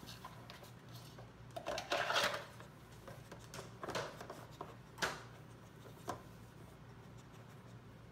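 Plastic boxes of a Trixie Activity Poker Box dog puzzle knocking and rattling as a beagle puppy noses and paws at the lids. There are a few scattered knocks, the loudest cluster about two seconds in and single knocks after it.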